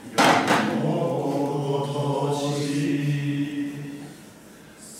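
Goten manzai chant: a voice holds one long, steady sung note after a brief sharp sound at the very start, then fades to a quieter stretch near the end.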